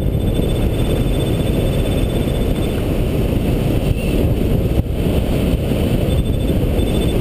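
Airflow rushing over the microphone of a camera mounted on a hang glider in flight: a loud, steady, low rumbling wind noise. A faint, rapid, high beeping comes through twice, early and again near the end.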